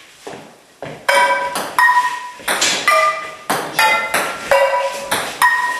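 Frying pans hitting a ping-pong ball back and forth in a rally: each stroke is a sharp metallic clang that rings on briefly, at a different pitch for different pans. The strokes come about two a second from about a second in.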